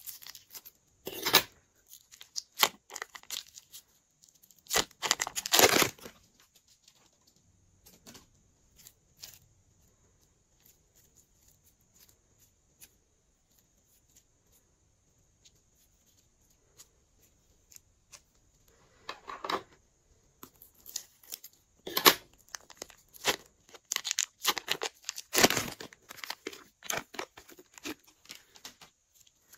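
Clear plastic piping bags filled with slime crinkling and rustling as they are handled, in short irregular bursts, with a long quiet stretch in the middle.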